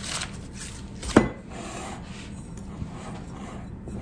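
Soft scraping and rubbing of a pastry blender cutting butter into flour in a glass bowl, with one sharp knock about a second in.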